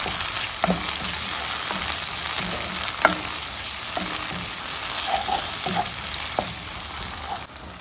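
Tomatoes, onion and ginger sizzling in hot oil in a nonstick frying pan while a wooden spatula stirs them, with a few light knocks of the spatula against the pan. The sizzling drops away just before the end.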